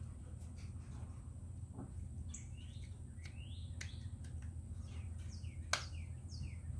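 Birds chirping in the background, a run of short sweeping calls starting about two seconds in, over a steady low hum. A single sharp click sounds near the end.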